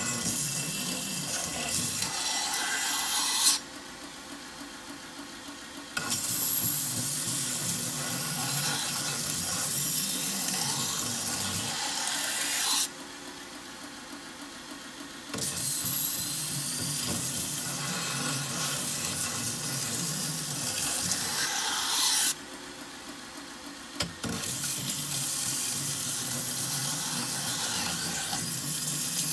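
Toycen Tradesman DC belt sander deburring the edges of a finned soft-metal part: a steady gritty hiss of metal on the abrasive belt in four long passes. In three short breaks the part is lifted off and only the sander's quieter running is heard.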